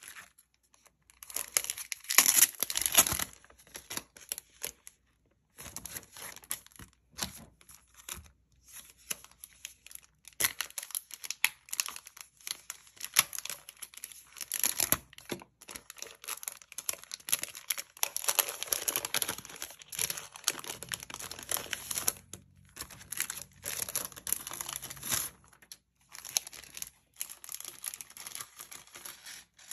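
Paper sticker sheets and a clear plastic zip pouch being handled, rustling and crinkling on and off with short pauses, loudest about two to three seconds in.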